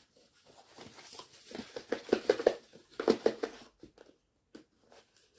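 Plastic packaging being unwrapped: an irregular run of crinkling and rustling, busiest in the middle and thinning out near the end.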